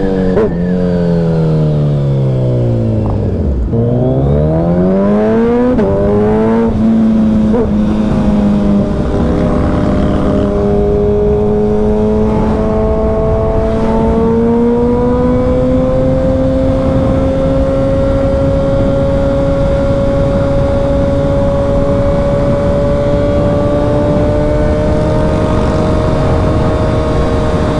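Suzuki Hayabusa's inline-four engine through a Brock's Performance Alien Head 2 aftermarket exhaust. The revs drop for a few seconds, then climb again; a gear change comes about six seconds in, and it then settles into a steady cruise whose pitch rises slowly.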